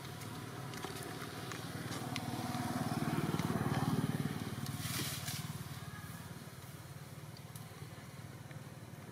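A motor vehicle passing: a low engine hum swells to a peak about four seconds in, then fades away.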